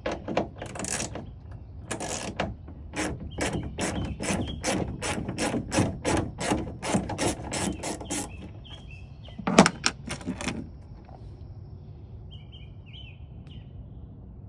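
Ratchet wrench clicking in a steady run of about two or three clicks a second as a taillight screw is turned, then a single louder knock about ten seconds in. Birds chirp faintly near the end.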